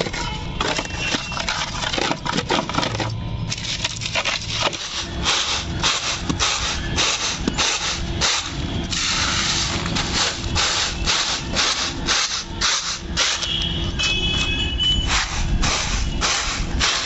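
Roasted chickpeas crunching under a brick on a plastic sack, then a woven bamboo winnowing basket (soop) shaken and tossed in a steady rhythm, the chickpeas rattling and thumping against the bamboo as the loose husks are thrown off.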